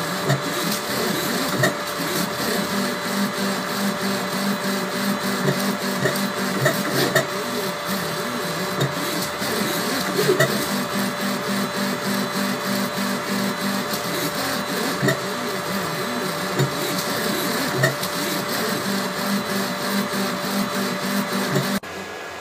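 3D printer running a fast print: the stepper motors whir and buzz, the pitch switching every second or so as the axes change direction, over a steady hum with occasional sharp clicks.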